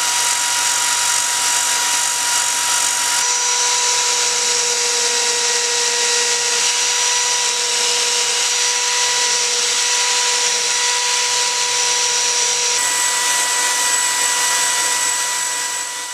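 DeWalt power drill rigged as a makeshift lathe, running steadily and spinning a metal rod while a rotary tool's disc and then a hand file take material off it. A constant motor whine over a grinding hiss, changing in tone about three seconds in and again near the end.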